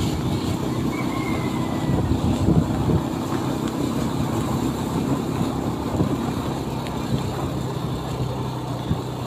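A vehicle driving along a road: a steady low engine hum under road and wind noise.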